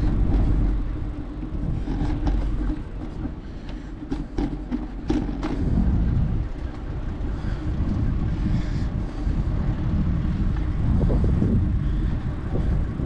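Wind buffeting an action camera's microphone on a moving bicycle, over road and passing-traffic noise, with a few sharp clicks about four to five and a half seconds in.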